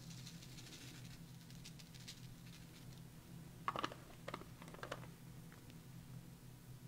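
Faint patter of ultra thick clear embossing powder being poured onto inked paper, followed about four seconds in by a few light clicks and rustles as the paper and powder are handled.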